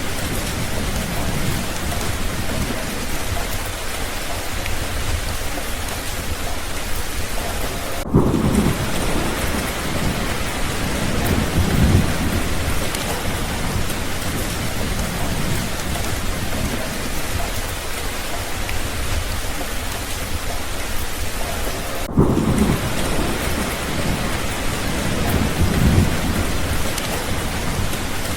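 Steady heavy rain falling, with low rolls of thunder rumbling under it twice, about eight seconds in and again about twenty-two seconds in. Each roll follows a split-second break in the rain.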